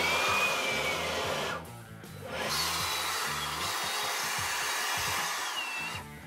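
Handheld cordless Craftsman blower run in two bursts, a short one and then a longer one, blowing drilling dust out of holes in a concrete block. Each burst carries a motor whine that drops as the trigger is let go.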